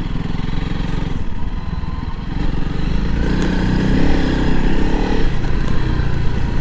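Honda CRF300L Rally's single-cylinder engine running under way, then picking up on the throttle about two and a half seconds in.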